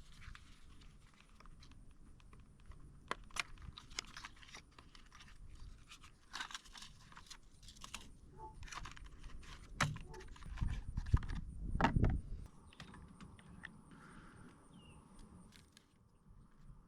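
Scattered clicks, clinks and scrapes of handling, with a cluster of louder knocks and a low rumble around ten to twelve seconds in.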